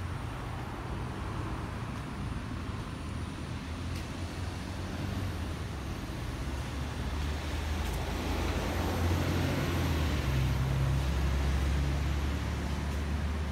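Road traffic going by, with the low engine hum of a passing vehicle growing louder through the second half and loudest near the end.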